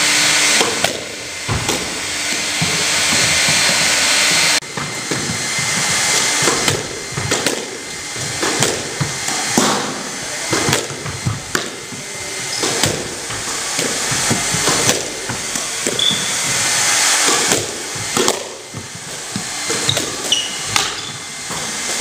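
A squash ball being hit with a racket and rebounding off the court walls during solo practice: a string of sharp knocks at irregular intervals over a steady hiss, with a few short high squeaks from shoes on the court floor.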